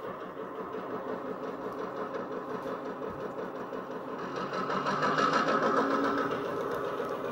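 Simulated EMD F7 diesel engine sound from a TCS WOWSound decoder, played through twin Tang Band speakers in an HO-scale F7 B unit: a steady, bassy engine throb that gets louder around five seconds in.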